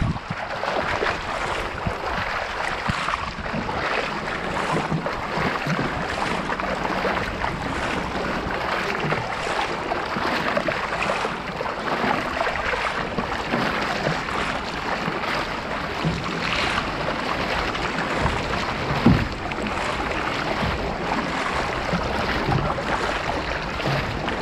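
Water rushing and splashing along the bow of a racing kayak under way, with the splash of paddle strokes from the paddlers close around it. A single sharper splash or knock stands out about 19 seconds in.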